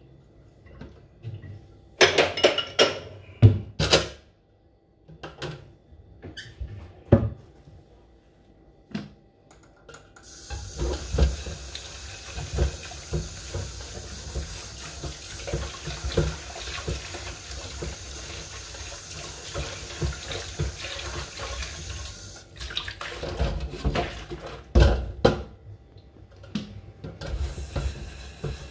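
Kitchen tap running into a stainless steel sink while dishes are washed, with clinks and knocks of glass and metal. Knocks and clatter come first; the water starts about ten seconds in, runs for about twelve seconds and stops, then more clatter, and the water comes on again near the end.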